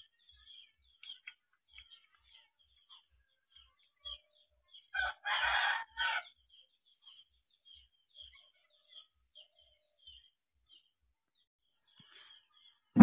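A rooster crowing once, about five seconds in, with a short break near the end of the crow. Faint, repeated small-bird chirps go on throughout.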